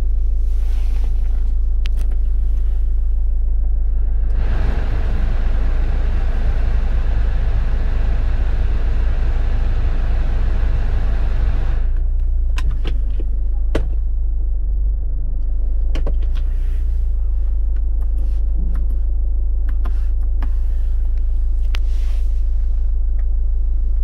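Idling engine of a GM Daewoo Winstorm heard inside the cabin as a steady low drone. From about four seconds to about twelve seconds the ventilation blower adds a loud rush of air, and after it stops, dashboard buttons click several times.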